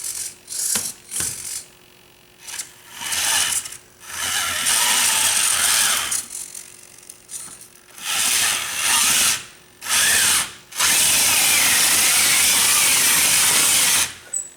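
Electric motors and gearing of a radio-controlled Bruder toy bulldozer whirring as it is test-driven: a string of short bursts at first, then longer runs, the longest and steadiest over the last three seconds.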